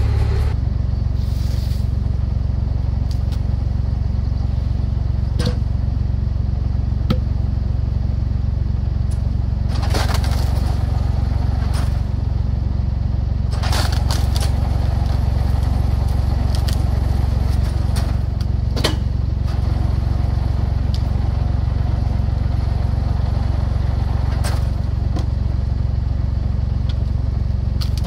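Fendt tractor's engine running steadily to drive a Posch Hydro Combi 26 firewood splitter, with sharp cracks and knocks now and then as birch logs are split and the pieces knock against the machine.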